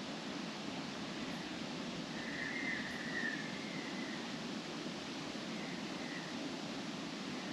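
Wind blowing steadily through trees, the leaves rustling in a continuous hiss. A short high tone sounds faintly about two and a half seconds in and again around six seconds.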